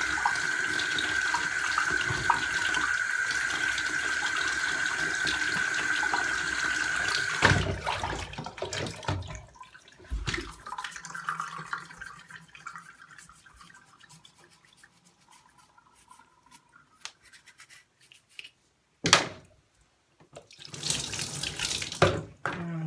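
Water running steadily from a tap onto the bathtub drain flange being cleaned, shut off suddenly about seven seconds in. After that come quieter scrapes and clicks of the drain flange being scrubbed by hand with a small brush, with two short noisy bursts near the end.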